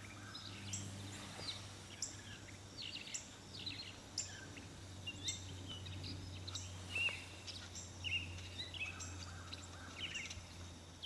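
Small birds chirping and calling in quick short notes, many sharp high chirps and little downward-sliding calls, over a steady low hum.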